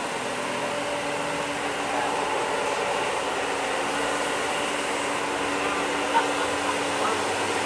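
Steady engine drone of heavy diesel trucks labouring up a steep hairpin bend, with a motor scooter passing close.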